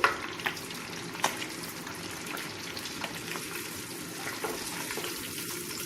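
Fish pieces frying in hot oil in a pan: a steady sizzle with a few small pops and crackles.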